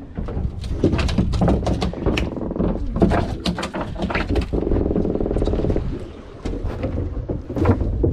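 A landed croaker grunting on the boat deck, its longest croak about a second long midway through, over a steady low rumble, with sharp knocks and clicks scattered throughout.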